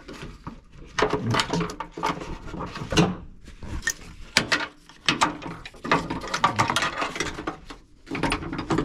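A car's seatbelt assembly being worked loose and slid through the interior trim: irregular clicks, clatters and scraping of metal and plastic parts being handled, with short pauses.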